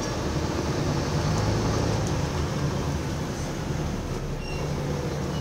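Cabin noise aboard a Scania Enviro400 double-decker bus on the move: a steady low engine drone under road and body rumble.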